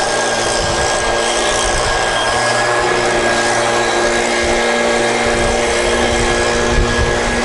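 Small gasoline engine of lawn equipment running steadily at a constant speed.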